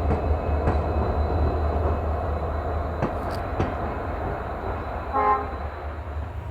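EMD WDP-4D diesel locomotive running light, a steady low engine rumble with wheel and rail noise. It gives a short horn toot about five seconds in.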